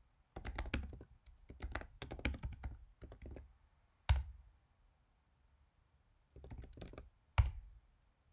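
Typing on a computer keyboard: a quick run of keystrokes entering a short terminal command, a single harder key press about four seconds in, then a few more keystrokes and another hard press near the end.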